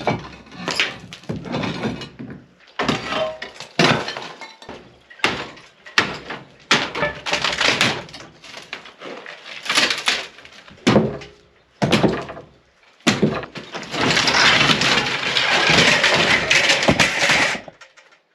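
Demolition of an old stone ruin: repeated knocks and clattering of stones being broken loose, then a few seconds of rubble pouring down as a section of wall collapses near the end.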